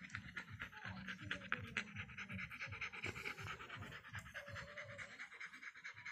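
Doberman panting quickly and evenly through an open mouth, several breaths a second, faint.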